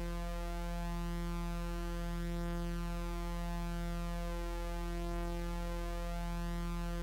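Electronic music: a sustained synthesizer drone of many steady held tones stacked over a deep bass tone, unchanging throughout.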